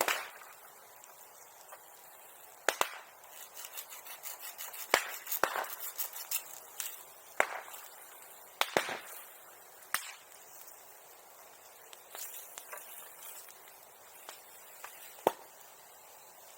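Bonfire crackling and popping: sharp, loud cracks every second or so with smaller crackles between them, thinning out after about ten seconds, with one last loud pop near the end.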